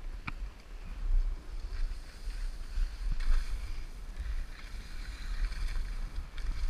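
Wind rumbling and buffeting on the microphone during a ski descent, with skis hissing through snow. There is one sharp click about a quarter second in.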